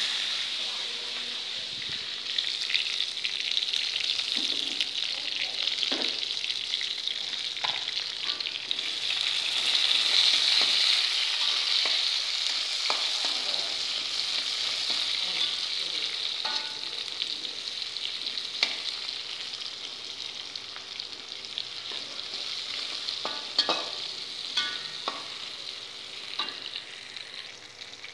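Chillies, shallots, garlic and tomato frying in hot oil in a wok, with a steady sizzle that grows quieter over the last few seconds. A metal spatula scrapes and taps against the wok now and then as the mixture is stirred.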